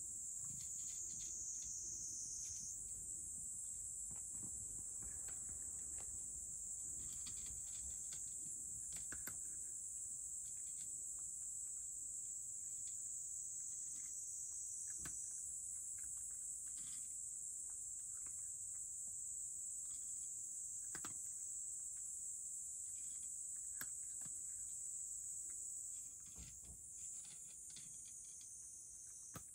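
Steady high-pitched insect chorus that gets quieter near the end, with a cat's faint, irregular crunching of dry kibble from a dish.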